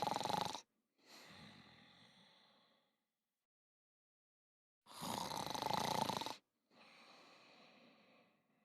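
Snoring from a sleeping cat: a loud rasping breath followed by a softer, fading one, repeated twice about six seconds apart.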